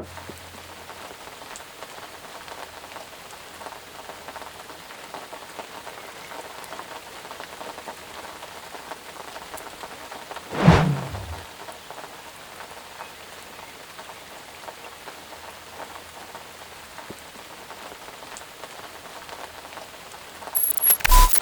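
Steady rain falling, an even hiss. It is broken about halfway through by one short, loud crash and near the end by a quick run of loud knocks.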